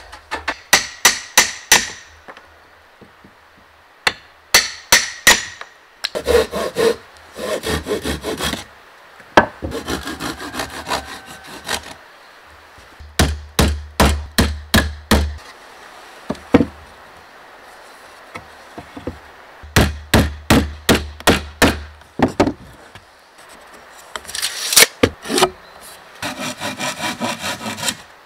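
Hammer driving nails into pine boards in several bursts of sharp, evenly spaced blows with pauses between. Between the bursts come stretches of faster, denser scraping strokes on wood.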